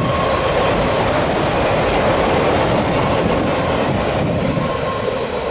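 Freight train of autorack cars rolling past: a steady loud rumble of steel wheels on rail, with a faint thin squeal near the start and again near the end, easing slightly in the last second or so.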